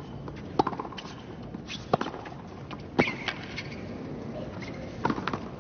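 Tennis rally on a hard court: sharp pops of the ball struck by racket strings and bouncing, roughly one a second.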